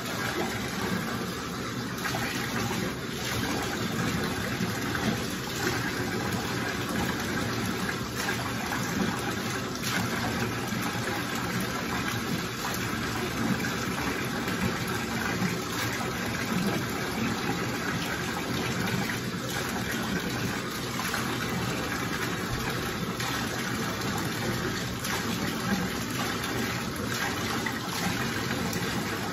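Water running steadily from a bathtub tap as a wet dog is washed, a constant rushing with a few brief knocks or splashes along the way.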